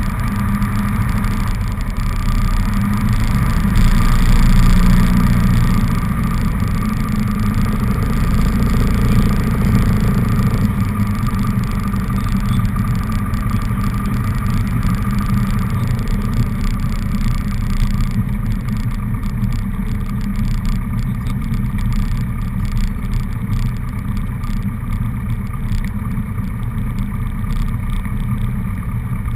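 Cessna 150's Continental O-200 four-cylinder engine and propeller running steadily as the plane rolls along the runway, with a slight swell in level about four seconds in.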